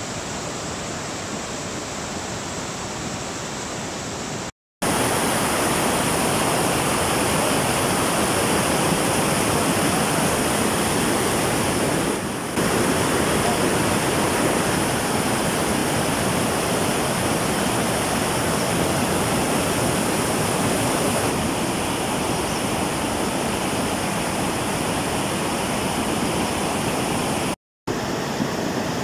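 Rushing floodwater of a rain-swollen creek pouring over rocks: a steady, loud rush of water. It is broken twice by a moment of silence, about four and a half seconds in and near the end.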